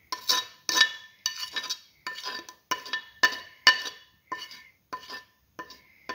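A spoon scraping and tapping against a china plate, about a dozen short strokes at roughly two a second, each with a brief ringing clink, as chopped garlic is scraped off into a bowl.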